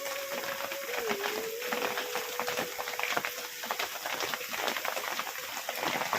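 Heavy rain pattering, a dense irregular crackle of drops, with a faint steady tone underneath.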